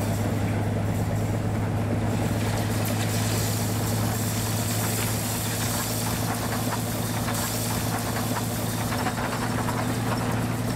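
Rotary snow plow train running through deep snow: a steady low mechanical drone from the locomotives and blower, with a rushing hiss of thrown snow that grows stronger a couple of seconds in as the plow comes closer.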